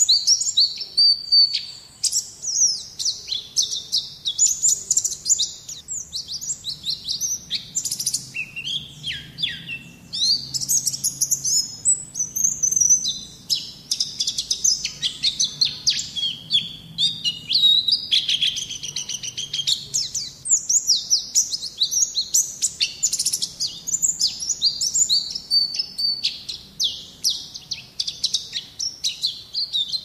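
White-eye (Zosterops, 'pleci') singing a long, rapid, almost unbroken twittering song of high, quick-changing notes, with a brief pause about ten seconds in.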